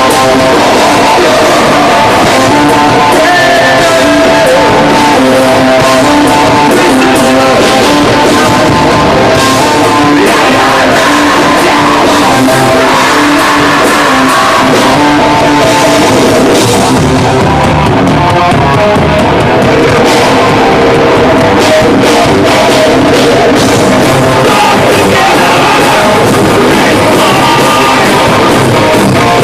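Metalcore band playing live: loud distorted guitars, drum kit and sung vocals, heavily compressed in a loud club recording.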